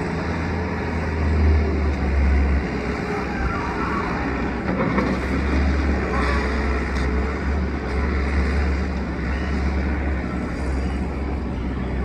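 Skid-steer loader's diesel engine running steadily as the machine works a sand pile, a low drone that eases off for a couple of seconds about three seconds in, then picks up again.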